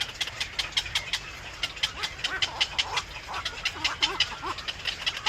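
Baby birds peeping in rapid short calls, about five a second, with lower, rounder calls from an adult bird joining in about two seconds in.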